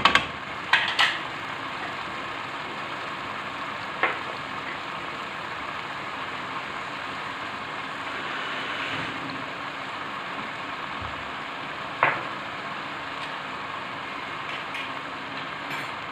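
Chicken pieces frying in oil in a pot with onion, tomato and spices, a steady sizzle throughout. A few sharp knocks break in near the start, once about four seconds in and once about twelve seconds in.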